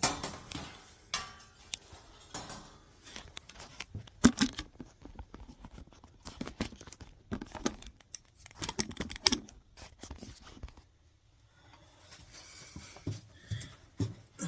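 Irregular clicks, scrapes and rustling from hands handling parts while a replacement furnace control board is fitted into place, with a short quiet spell about two-thirds of the way in.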